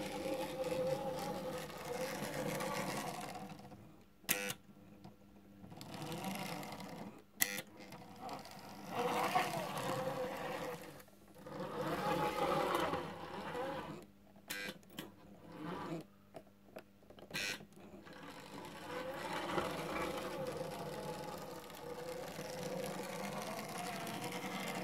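Märklin 3031 HO-scale class 81 model steam locomotive running on metal track, its motor whirring and wheels rolling with a steady hum. It runs in stretches, with quieter pauses of a few seconds between them that carry a few sharp clicks.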